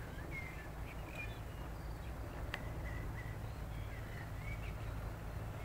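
Faint, scattered bird chirps over a steady low rumble of wind on the microphone, with a single sharp click about two and a half seconds in.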